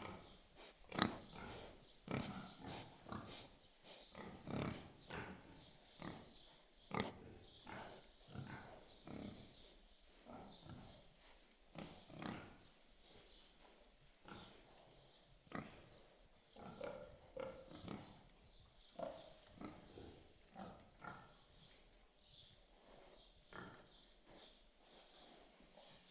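Pigs grunting and oinking: a steady stream of short, irregular calls, a few of them louder than the rest.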